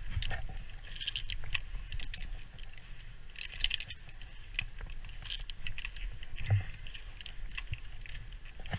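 Metal carabiners and a rope descender on a climbing rope clinking and rattling as they are handled, with irregular clicks and scraping throughout.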